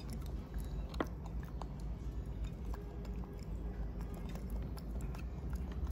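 Faint cracking and clicking as the hard black shell of a boiled water caltrop is peeled by hand, over a low steady hum. The shell is tough and hard to peel.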